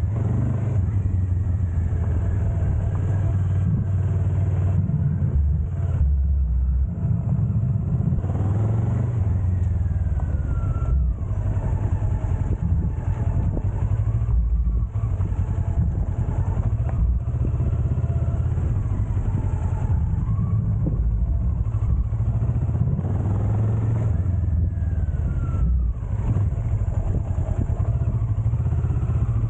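Adventure motorcycle's engine running under way on a dirt track, with a heavy low rumble throughout. The engine note glides in pitch with the throttle, falling about a third of the way in and again near the end.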